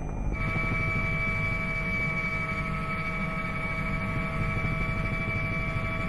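Helicopter heard from inside the cabin: a steady turbine whine held at a few fixed pitches over a low engine and rotor rumble, cutting in abruptly a moment in.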